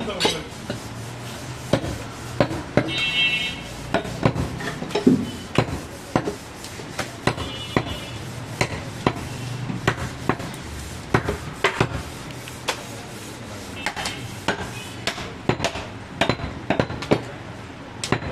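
Goat meat and bone being chopped with a butcher's cleaver, in irregular sharp blows about one or two a second. A few blows ring briefly and metallically.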